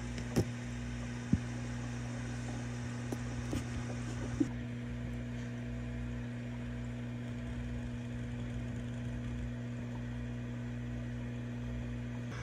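Aquarium air pump humming steadily as it drives a bubbling sponge filter, a low even drone. A few light taps come in the first five seconds.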